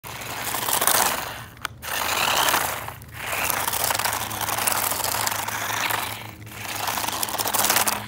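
Remote-control car with a cardboard body running across coarse concrete: motor and gear whir with the rush of its wheels on the rough surface, dropping away briefly three times as the throttle comes off.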